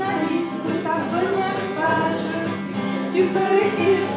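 A song with a voice singing a melody over acoustic guitar.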